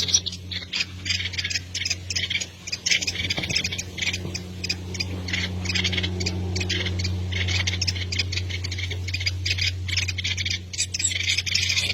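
Birds cheeping and chirping rapidly and continuously, high-pitched, over a steady low hum.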